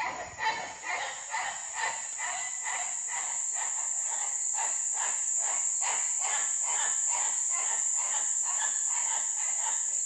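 Rainforest insect chorus: a steady high-pitched buzz with a fast, even pulsing of calls beneath it, about four a second.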